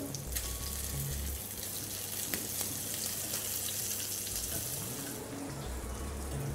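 Slices of pork belly sizzling in hot fat in a frying pan as they are turned over with tongs, a steady sizzle throughout.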